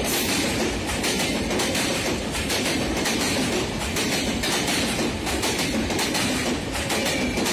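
Bangladesh Railway passenger coaches passing at speed close by. There is a steady loud rumble and a rapid, irregular clatter of wheels over the rail joints.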